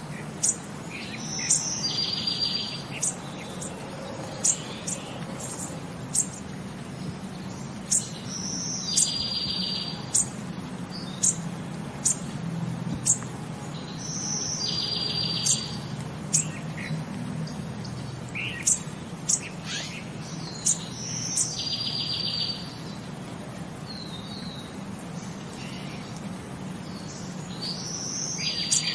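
Bird calls repeating: a short high whistle followed by a rapid buzzy trill about every six seconds, with sharp single chirps between, over a steady low hum.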